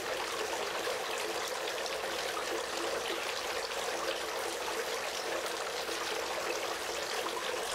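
Three-tier garden fountain running: water spilling over the edges of the tiered bowls and splashing steadily into the bottom basin.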